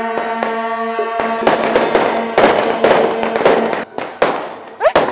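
A temple procession troupe's long horns hold one steady note, and from about a second and a half in a string of firecrackers crackles rapidly over it, drowning the horns.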